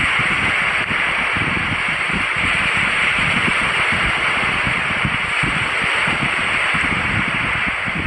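Steady rushing sea ambience: an even hiss of surf and wind with a low buffeting rumble underneath.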